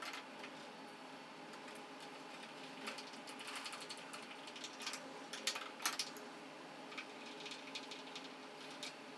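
Scattered clicks and light knocks of a steel roller bar and its plastic end collars being handled and fitted to a DTF printer's film-roll holder, with two sharper knocks a little past halfway.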